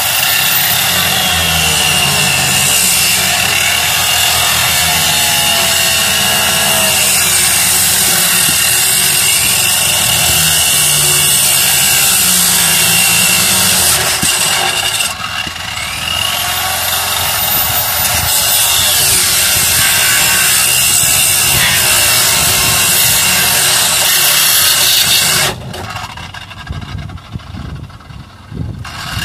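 An electric power tool cuts through the Land Rover Discovery's roof, running steadily with a high whine. About fourteen seconds in it eases off briefly and then spins back up with a rising whine, and it stops a few seconds before the end.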